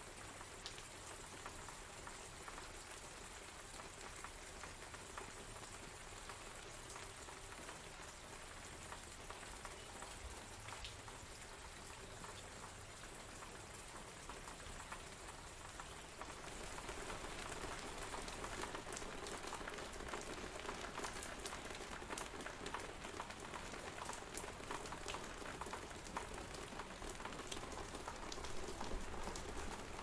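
Water falling in a steady patter: an even hiss dotted with many small drip-like ticks, growing louder about halfway through.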